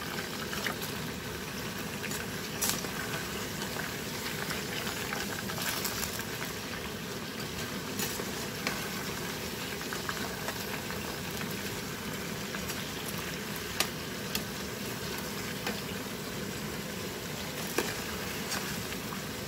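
Potato fries deep-frying in hot oil in a saucepan: a steady bubbling sizzle, with a few sharp clicks now and then. The fries are nearly cooked.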